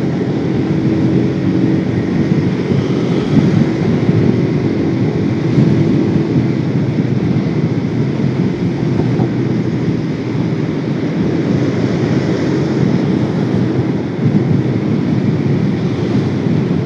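Motorcycle riding steadily at road speed: engine and road noise under a steady wind rush over the microphone.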